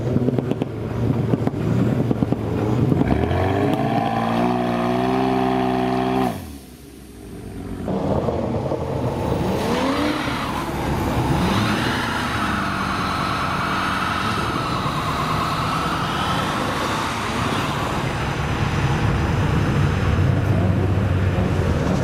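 Performance car engines revving hard and accelerating away, the pitch climbing steadily in the first seconds, then a long wavering tyre squeal from wheelspin in a burnout.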